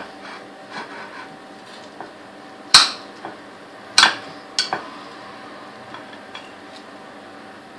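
Kitchen knife cutting through a no-bake biscuit cake and knocking against the ceramic plate beneath: a few sharp clinks, the loudest about three and four seconds in, with fainter knife taps and scraping between.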